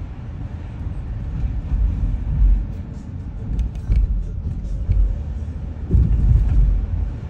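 A car driving slowly along a city street, with a steady low road rumble from the tyres and a few heavier bumps about two, four and six seconds in.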